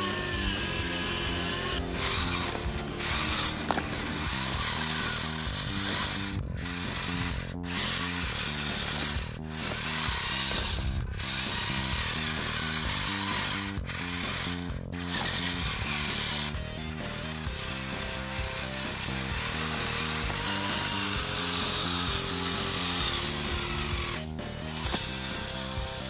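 Small electric gear motors of a homemade remote-control model tractor whining as it pulls a toy trolley loaded with soil over dirt, with background music.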